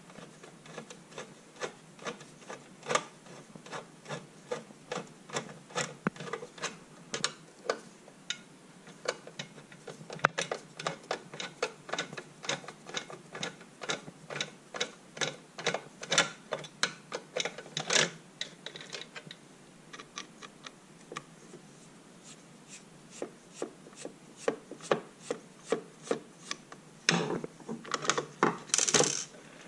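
Screwdriver turning out screws from the metal hinge plate of a Kenwood Chef mixer: a long irregular run of short clicks and scraping, a few a second, as the blade works in the screw heads. Louder rubbing and scraping of handled plastic parts near the end.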